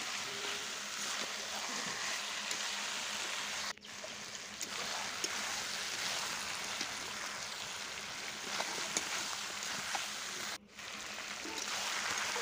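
Marinated chicken pieces sizzling as they slow-fry in oil in a metal kadai, stirred with a metal spatula that scrapes and clicks lightly against the pan. The sound cuts out briefly twice.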